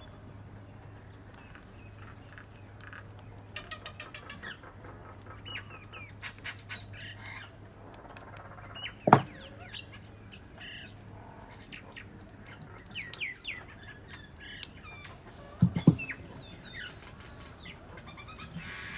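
Birds chirping and calling in the background, with many short, quick chirps. Two sharp knocks stand out, about halfway through and again about three-quarters of the way in, as the carburettor and tools are handled on the bench.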